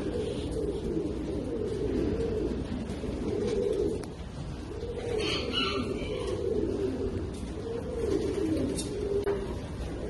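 Domestic pigeons cooing over and over in low, rolling coos, with a brief higher-pitched sound about five seconds in.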